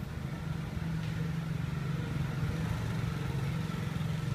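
A motor engine running steadily, a low, even hum with a fast pulse.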